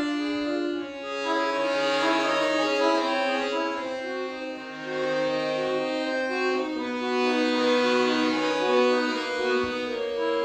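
Solo accordion (bayan) playing a slow, sustained melody in several voices, with held lower notes coming in and dropping out every couple of seconds.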